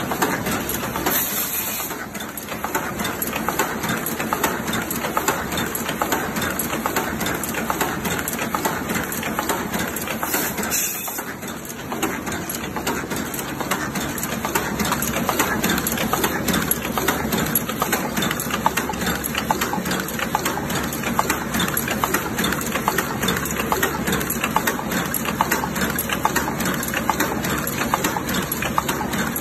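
Paper cup making machine running in production: a fast, continuous mechanical clatter from its moving stations.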